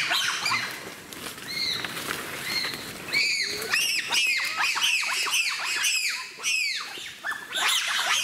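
Wild bonobos giving a rapid series of short, high-pitched calls that rise and fall in pitch. A few calls come at the start, then several a second from about three seconds in.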